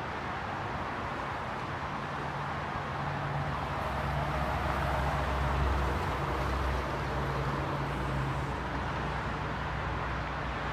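Steady road-traffic noise with a low vehicle rumble that grows louder about three seconds in and fades after about eight seconds.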